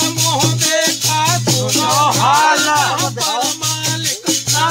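Men singing a Holi folk song together, with rattling percussion keeping a fast, even beat.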